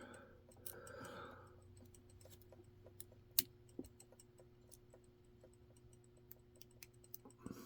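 Small scattered metallic clicks and ticks of lock picks working the pins of a lock, with one sharper click about three and a half seconds in, over a faint steady hum.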